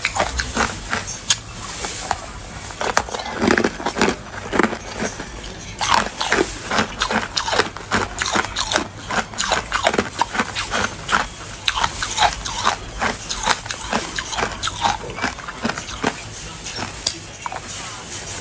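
Ice coated in matcha powder being bitten and chewed close to the microphone: a dense, continuous run of crisp crunches and cracks.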